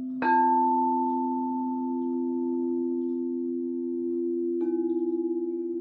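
Crystal singing bowls: one is struck about a quarter second in and rings on, long and pure, over the steady hum of another bowl already sounding. A second strike comes near the end, after which the tone pulses with an even wobble.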